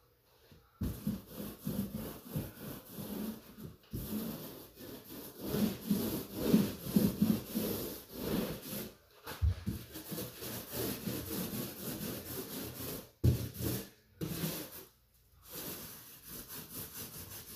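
Paint roller being rolled over drywall, laying on a first coat of paint: a repeated rubbing sound in strokes with a couple of short pauses.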